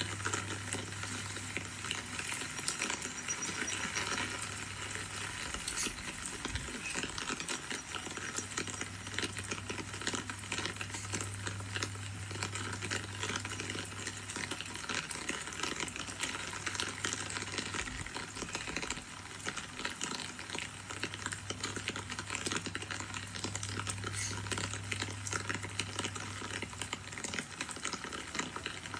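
Steady rain falling, a dense crackle of many small drops, with a low steady hum underneath.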